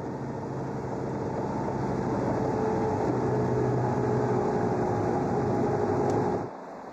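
Diesel engine of an Aebi Viatrac road tractor running steadily as it pushes a snow plough, heard from inside the cab. It grows gradually louder and stops abruptly about six and a half seconds in.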